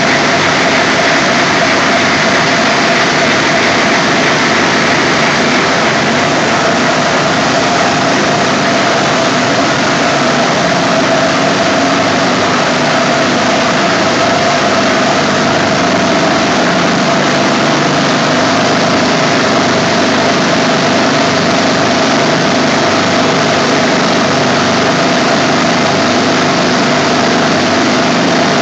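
Piston compressors driven by high-voltage synchronous motors running steadily in a compressor house: a loud, even machine din with a steady whine running through it.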